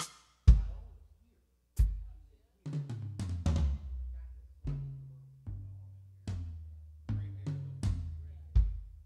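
Drum kit struck in single, unevenly spaced hits, about a dozen in all: deep drum strikes that ring on low and fade, some with a sharper snare or cymbal crack on top. The loudest hit comes about half a second in.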